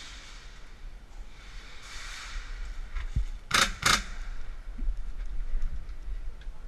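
Two sharp airsoft gun shots about a third of a second apart, over a faint hiss of background noise.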